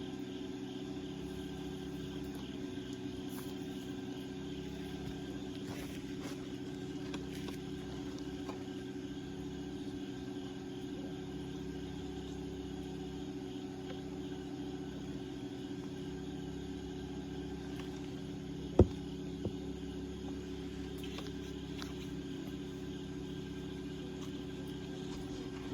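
A steady low hum with one sharp pop from the bonfire about 19 seconds in, and a smaller pop just after.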